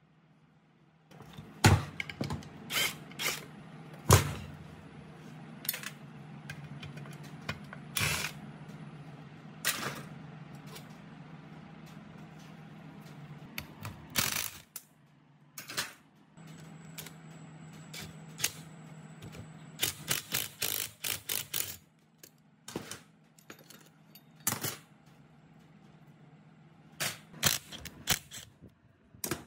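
Power driver spinning a socket to back out fasteners on the end of an old electric motor, its motor humming steadily in two long runs. Sharp metallic clicks and clinks of the tool and the loose rusty parts come over it, with a quick cluster of them a little after the second run begins.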